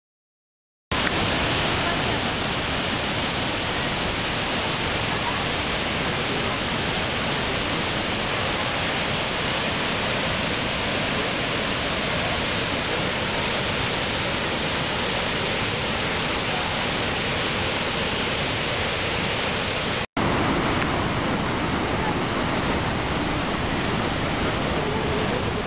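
Kegon Falls, a large waterfall, rushing steadily in an unbroken wash of noise. It starts abruptly about a second in and cuts out for an instant about twenty seconds in.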